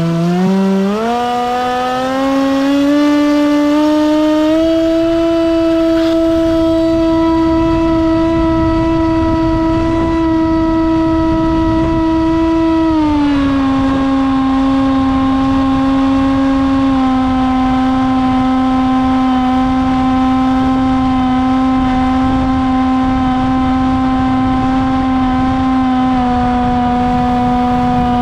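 Electric motor and propeller of a Bixler RC plane running at a steady throttle, a loud whine. It rises in pitch over the first few seconds, holds, then drops to a lower steady pitch about halfway through, with small further steps down later, over a rushing noise.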